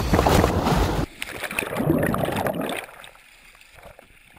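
Water sloshing and splashing, loud for about three seconds, with a short dip about a second in, then falling to a low hiss.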